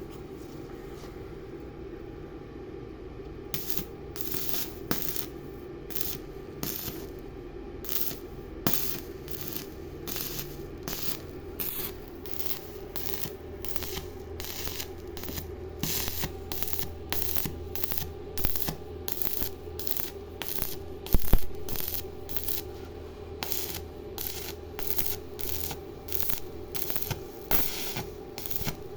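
Repeated short scraping or rasping strokes, about one to two a second, over a steady low hum, with one louder knock partway through.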